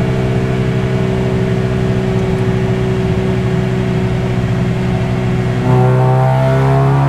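Stock Honda K20A2 inline-four of an Acura RSX race car, fitted with a 55 mm intake restrictor, running on a chassis dyno, heard from inside the cabin. It holds a steady engine speed in gear, then a little before the end the throttle opens fully for a dyno pull: the engine gets suddenly louder and its pitch climbs slowly under load.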